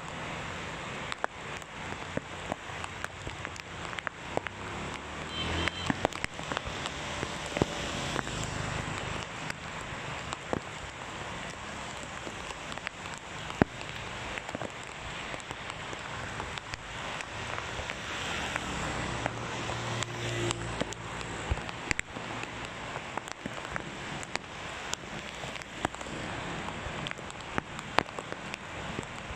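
Heavy rain falling steadily on a wet road, with many sharp ticks of drops striking close by. Motorbikes pass on the wet asphalt now and then, about five seconds in and again around twenty seconds.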